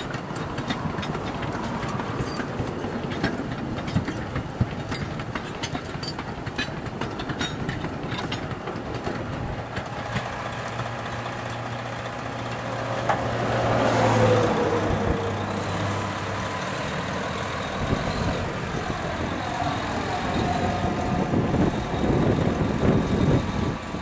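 Sugar cane train: loaded cane bins rolling past with a fast run of wheel clicks over the rail joints, then a diesel cane locomotive's engine running with a steady hum that swells about halfway through.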